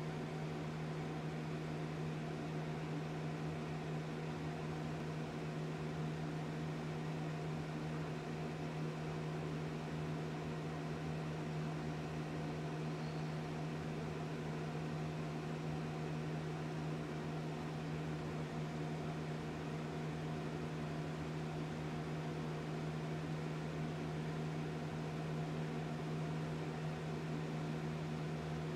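Steady low hum with a hiss over it.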